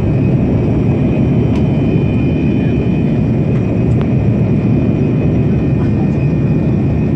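Steady in-flight cabin noise of a Boeing 787 Dreamliner: a constant low rumble of engines and airflow, with a thin steady high whine above it.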